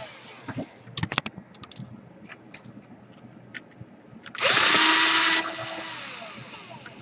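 Small electric screwdriver running in one burst of about a second: its whine rises quickly, holds steady, then fades as it winds down. It is backing out the laptop's heatsink screws. Before it come a few light clicks from handling the parts.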